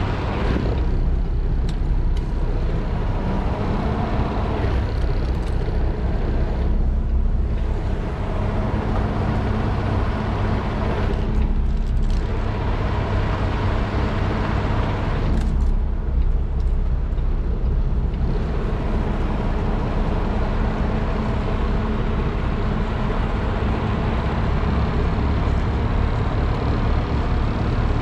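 Semi truck's diesel engine running at low speed, a steady low drone, as the tractor-trailer is slowly backed toward a loading dock.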